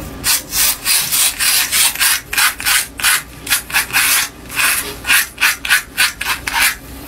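Cartridge razors scraping through shaving foam and stubble on a scalp, in quick short strokes, several a second.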